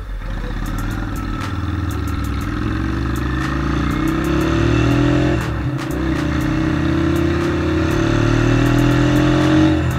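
Honda Steed 400's V-twin engine pulling under load on the road, its pitch climbing steadily. About five seconds in the revs drop briefly at a gear change, then climb again, and the revs fall again just before the end.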